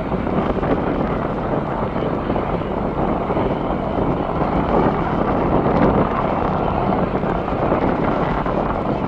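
Steady airport background roar, an even noise with no single distinct event, with wind on the microphone.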